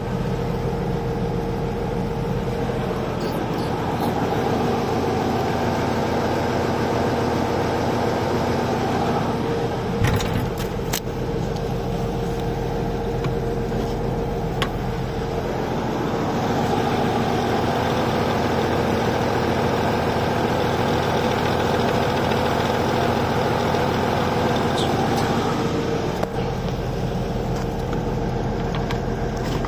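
Freshly rebuilt Fiat 180-90 tractor diesel engine running steadily, its note shifting a few times as the engine speed changes. A couple of sharp knocks come about ten seconds in.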